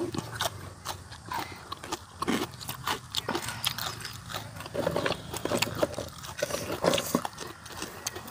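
Chewing of crunchy food, crispy pork rinds and green papaya salad, close to the microphone: irregular crisp crunches throughout.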